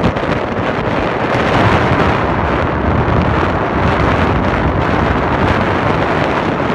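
Loud, steady rush of wind on the microphone of a moving car, with the car's road noise underneath.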